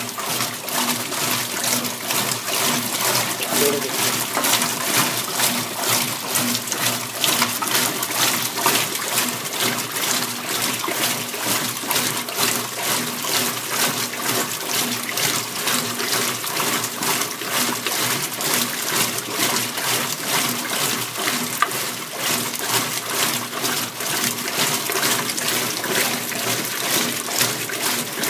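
Kenmore KLA7924FQ0 top-load washing machine running empty on a rinse cycle, with water rushing and sloshing in its tub in quick, uneven surges over a faint steady motor hum.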